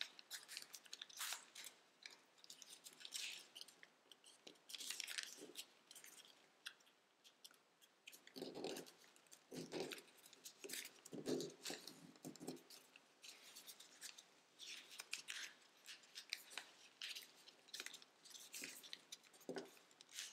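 Tissue-foil origami paper crinkling and rustling as it is folded and creased by hand, in irregular crisp bursts. Around the middle come several duller, lower rubs of the paper being pressed down.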